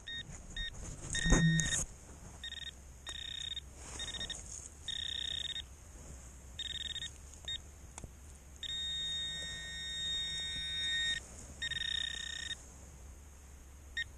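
Handheld metal-detecting pinpointer beeping in on-and-off bursts as it is probed through the dug soil, with one long unbroken tone about nine seconds in, the sign that it is close to a metal target. A loud knock of handling or soil comes about a second and a half in.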